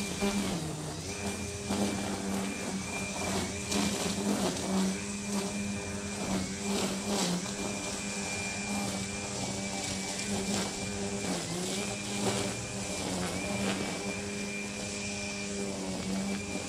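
A powered lawn-care machine running steadily with a pitched hum that dips briefly in pitch several times, over a steady hiss and scattered short ticks.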